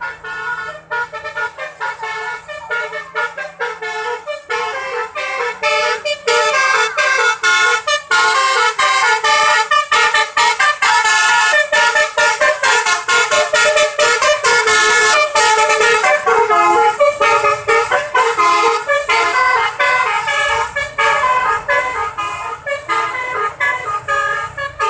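A bus's 'telolet basuri' multi-tone musical horn plays a fast melody of short, stepping notes, loud throughout and swelling louder about six seconds in.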